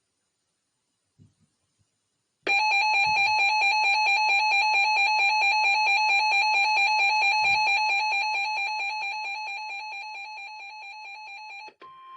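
Weather alert radio receiver's electronic alarm beeping in a fast pulse for about nine seconds, fading over its last few seconds, marking a new warning coming in. Just before the end it gives way to the steady single-pitch warning alarm tone of NOAA Weather Radio.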